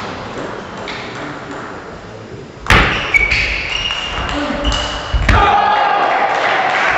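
Table tennis rally: sharp clicks of the celluloid ball off bats and table, the loudest about two and a half seconds in. Near the end the crowd breaks into applause as the point ends.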